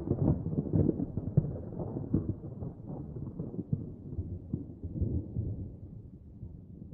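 The rolling, crackling rumble of an explosion's aftermath, fading out gradually: the tail of an explosion sound effect.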